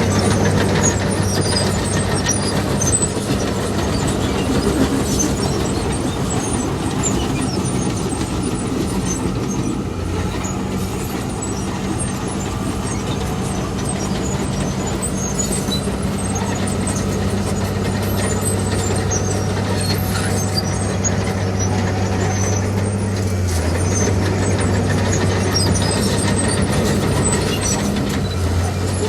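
Diesel engine of heavy earthmoving machinery running steadily at work, with a constant low hum and scattered small clanks and rattles over it.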